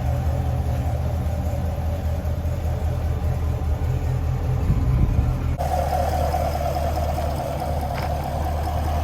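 V8 engine of a 2020 SS fitted with new long-tube headers and the stock exhaust, idling steadily. There is a short swell in the engine sound about five seconds in, and the tone changes abruptly a little past halfway.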